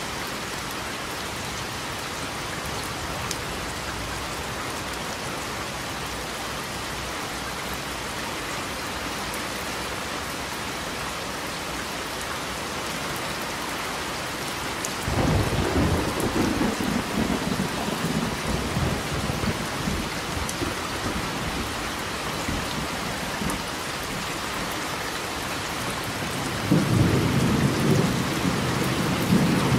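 Steady rain with two rolls of thunder: the first breaks in suddenly about halfway through and rumbles for several seconds as it fades, and the second starts near the end.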